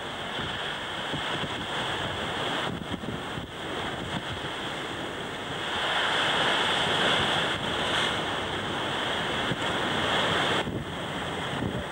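Ocean surf washing against coastal rocks, with wind buffeting the microphone. The rush grows louder about six seconds in and drops back shortly before the end.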